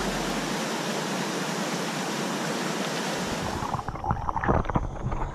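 Steady rush of river water tumbling over rocks. About four seconds in the sound turns muffled and gurgling, full of bubbles, as heard from under the water.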